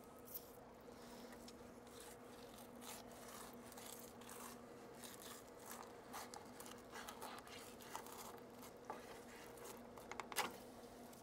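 Knife cutting along a redfish's spine and through its rib bones and scales: faint crunching and scraping, with a sharper cluster of crunches near the end.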